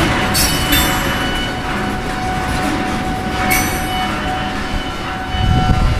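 Freight train of ethanol tank cars rolling past, with the wheels clacking sharply over the rail crossing diamond a few times and a thin steady ring from the wheels. The low rumble swells near the end.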